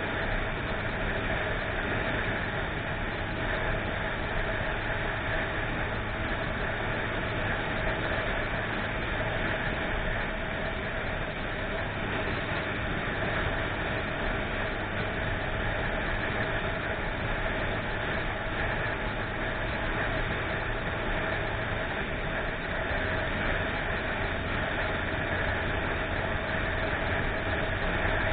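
Steady engine and cabin noise heard from inside a motor vehicle, an even, unbroken hum with no sudden events.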